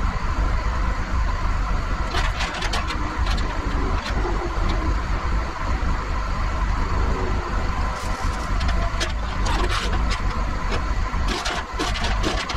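CAT 938G wheel loader's diesel engine idling steadily, heard from inside the cab, with scattered sharp metallic clicks and clinks over it.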